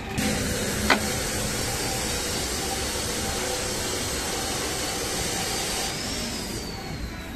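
A steady hiss that starts abruptly and fades near the end, with one sharp click about a second in and a faint falling whistle near the end.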